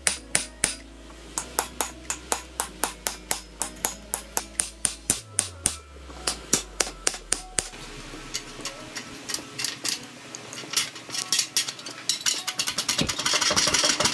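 Rapid hammer blows, about four or five a second, on the steel hub assembly of a Ford Super Duty Dana 60 front axle, driving the rusted, tight-fitting hub bearing assembly off the knuckle. In the second half the blows come less evenly, with scraping near the end.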